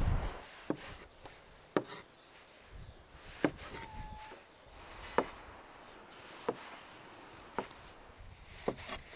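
Chef's knife halving cherry tomatoes on a wooden cutting board: each cut ends in a sharp knock of the blade on the wood, about one a second.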